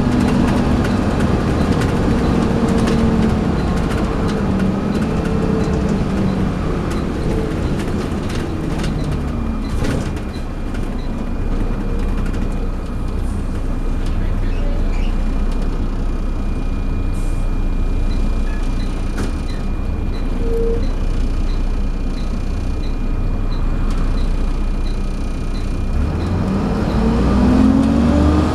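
Volvo B7TL double-decker bus heard on board, its 7-litre six-cylinder diesel dropping in pitch as the bus slows. A steady high whine, the 'hoover' sound, carries on through a quieter stretch with faint regular ticking. Near the end the engine revs up again as the bus pulls away.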